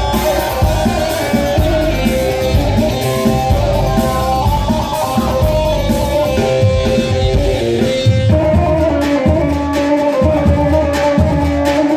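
Live dance music with a plucked bağlama melody over a steady drum beat.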